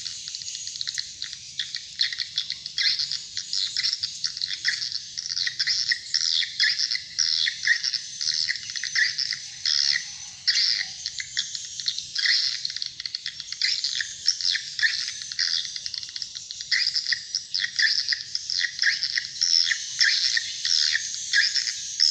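Swiftlet lure call playing over rooftop horn speakers: a recorded track of swiftlet chirps and twitters meant to draw swiftlets to nest in the building. The chirping is rapid and unbroken, high-pitched and dense.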